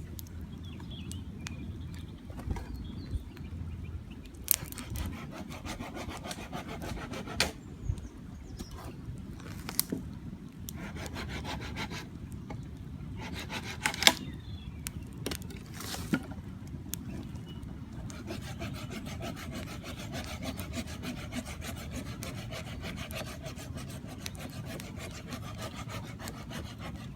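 A hand saw cutting through wood in several bouts of quick back-and-forth strokes, the longest bout running through the second half, with a few sharp knocks between bouts.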